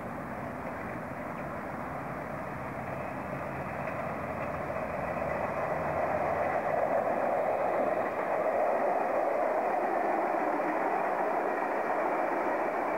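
Stainless-steel double-deck electric suburban train approaching and running past close by, the noise of its wheels on the rails growing louder over the first six seconds and then holding steady.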